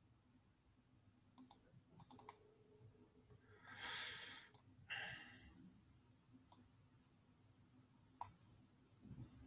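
Faint computer mouse clicks, one or a few at a time, while browsing files. A short breathy rush of noise comes about four seconds in, and a shorter one a second later.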